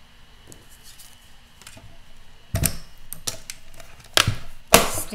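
Plastic Stamp & Cut & Emboss die-cutting machine being set down and shifted on a tabletop: a few knocks and clunks in the second half, the loudest just before the end.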